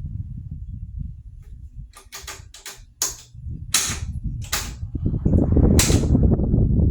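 Vintage Tatung 12-inch oscillating table fan running, its airflow rumbling on the microphone; the rumble dips about two seconds in and swells again near the end. Over it come about six sharp, separate clicks or clacks.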